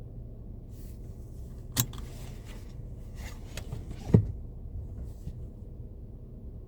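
Low steady rumble of a minivan, with a few clicks and rustles of handling inside it and one sharp knock about four seconds in.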